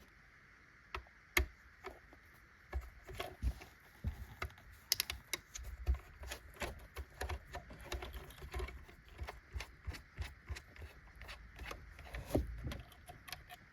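Light, irregular clicks and taps of a small screwdriver and of handling a plastic model train body as its small screws are undone.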